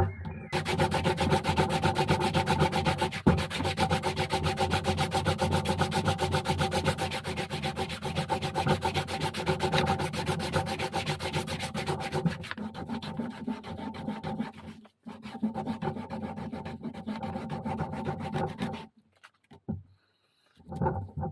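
Edges of a veg-tan leather holster being sanded and burnished: a fast, even rubbing that weakens about twelve seconds in and breaks off into short pauses near the end.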